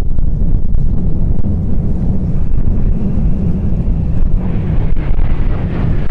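Two Dassault/Dornier Alpha Jets flying past in close formation with a steady jet-engine roar, wind buffeting the microphone.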